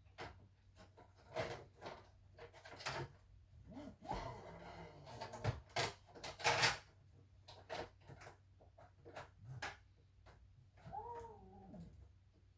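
A cat meowing twice: a short call about four seconds in and a longer one falling in pitch near the end. Scattered clicks and knocks from handling things run between the calls, the loudest about six and a half seconds in.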